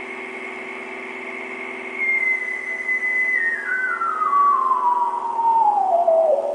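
Vintage ARP Solina string synthesizer with added reverb, holding a steady low chord while a high whistling lead tone, about two seconds in, starts sliding down in small steps, falling about two octaves.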